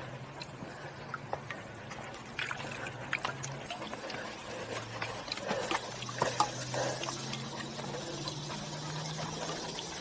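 Footsteps of a hiker and a dog walking a rocky dirt trail: scattered scuffs and clicks of shoes and paws on dirt and stone, over a low steady hum.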